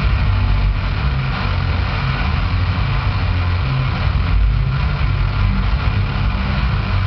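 Electric bass guitar played through effects pedals, making a loud, steady low rumbling noise drone with a dense wash of distortion above it.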